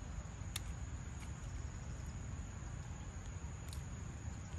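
Steady high-pitched insect drone of crickets over a low rumble, with a couple of faint clicks, one about half a second in and one near the end.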